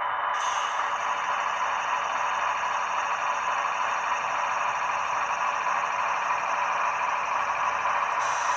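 Sound decoder in a ScaleTrains Tier 4 GEVO (ET44AH) model locomotive playing a steady diesel engine sound through its small onboard speaker. It is thin and tinny, with little bass.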